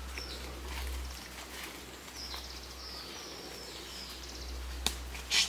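Faint outdoor ambience: a steady low rumble with faint high bird chirps, and a sharp click a little before the end.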